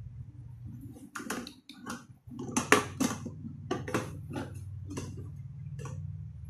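A hollow plastic toilet cistern being handled and turned over: a run of plastic clicks and knocks from about a second in until near the end, over a low steady hum.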